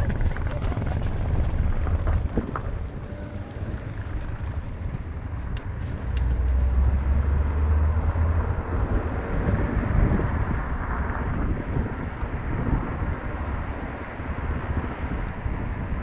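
Steady rumble of a moving vehicle, with wind buffeting the microphone in gusts, strongest about six to eight seconds in.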